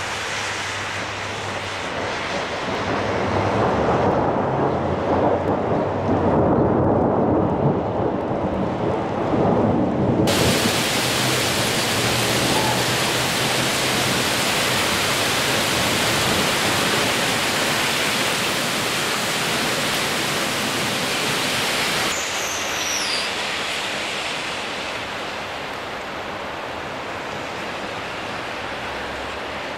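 A low rumble for the first third, then an abrupt switch to heavy rain pouring down in a loud, steady hiss. A brief high falling squeak sounds about two-thirds of the way in.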